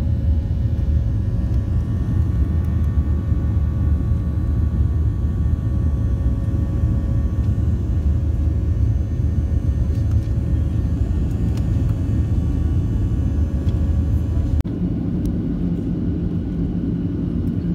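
Steady loud rumble of a Boeing 737 airliner's jet engines and airflow, heard from inside the cabin by a window over the wing in flight. About fifteen seconds in the sound changes abruptly to a slightly quieter, steadier hum with a low drone.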